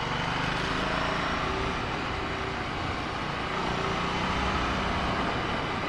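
Motorcycle engine running steadily at road speed, with wind rushing over the microphone.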